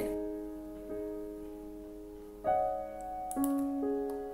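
Background piano music: slow sustained chords, a new chord struck every second or so.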